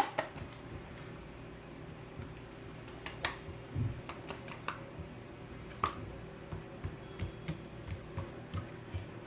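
Hands stretching and working thin, ghee-greased feteer dough on a work surface: soft squishing with light sticky pats and taps at irregular intervals.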